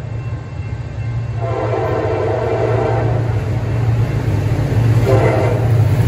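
Air horn of an approaching pair of CSX SD40-2 diesel-electric locomotives: a long blast starting about a second and a half in, then a short one near the end, part of the long-long-short-long grade-crossing signal. Under it is the steady low drone of their EMD 645 two-stroke V16 engines, growing louder as the train nears.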